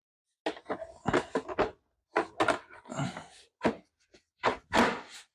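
Plastic parts of a DeWalt 60V FlexVolt leaf blower being handled and fitted together while the blower nozzle tube is put on: a run of short knocks, scrapes and clicks with quiet gaps between them.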